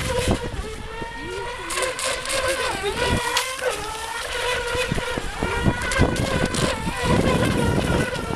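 ECO Expert 2008 RC speedboat's motor running at speed on the water: a steady high whine that dips and bends in pitch about three seconds in as the boat turns, then holds steady again.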